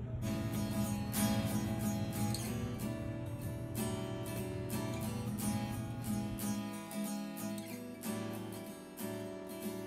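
Background music: strummed acoustic guitar with a steady rhythm. A low sustained bass note drops out about six seconds in.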